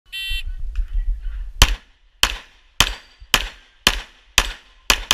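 A shot timer's short electronic start beep, then about a second later a string of 9 mm pistol shots from an Imbel MD1 GC, roughly two a second.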